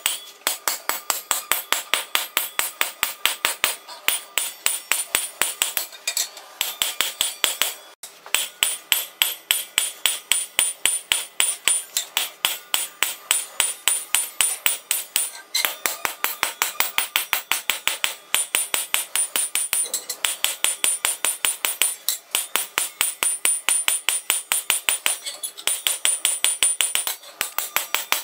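Hammer forging coil-spring steel on an anvil: quick, even metal-on-metal strikes, about five a second, each with a bright ring, in runs broken by short pauses.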